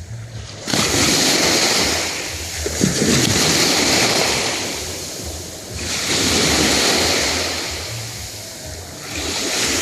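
Black Sea waves breaking on the shore: three surges of surf, one starting suddenly about a second in, another a little before halfway and the last near the end, each swelling into a hiss and then fading as it washes back.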